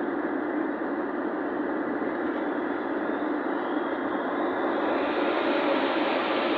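Steady road, tyre and engine noise of a vehicle cruising at expressway speed, heard from inside the cabin; it grows a little louder and brighter about five seconds in.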